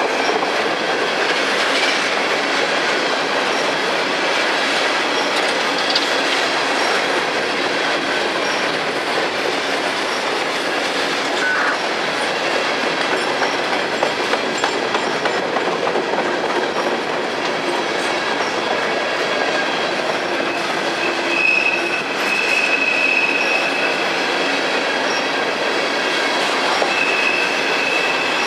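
Freight train cars rolling steadily past, with a brief high-pitched wheel squeal about two-thirds of the way in and again near the end.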